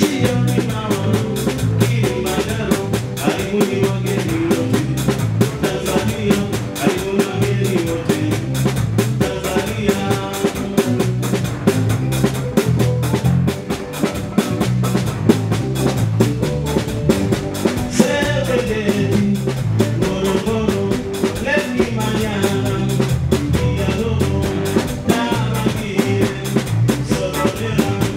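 A live band playing an upbeat dance number: a drum kit keeps a steady beat of snare and cymbal strokes over bass, with singing in stretches.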